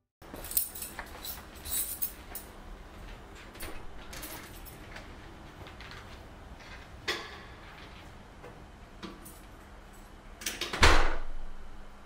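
Scattered small clicks, taps and knocks of objects being handled, over a low background hiss, with one louder scraping sound lasting about half a second near the end.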